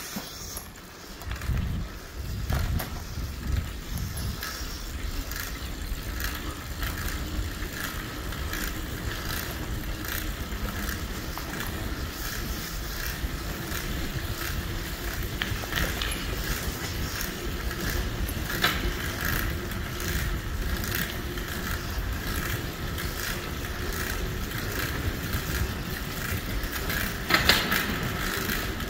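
Bicycle rolling over rough, cracked concrete, a steady low tyre rumble with scattered rattles and clicks from the bike, and a louder clatter of rattles near the end.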